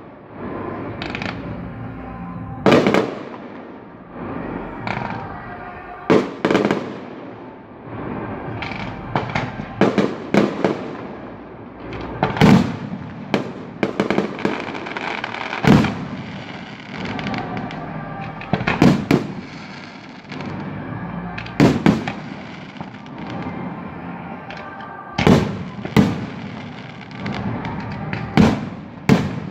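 Aerial firework shells bursting overhead: a series of loud, sharp bangs at irregular intervals, mostly a couple of seconds apart.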